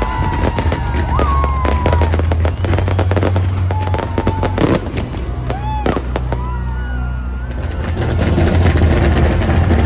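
Fireworks display going off in rapid succession: dense crackling and sharp reports over a deep, continuous rumble.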